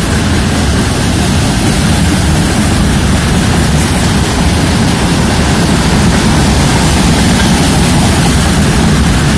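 Freight train of railway tank wagons rolling past close by: a loud, steady rumble of steel wheels running on the rails.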